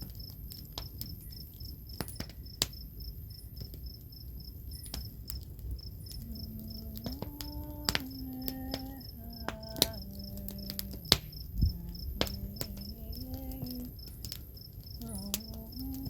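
Crickets chirping steadily in rapid, even pulses, with scattered sharp clicks. From about six seconds in, a woman hums a slow, wordless melody in a low voice.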